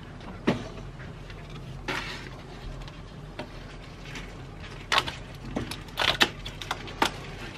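Hands handling a cardboard advent calendar and small plastic toy pieces: scattered sharp clicks and taps, most of them bunched between about five and seven seconds in, over a low steady hum.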